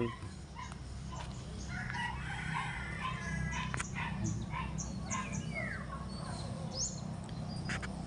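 Birds calling: many short, scattered chirps from small birds, with a rooster crowing in the background and a falling call about six seconds in, over a steady low hum.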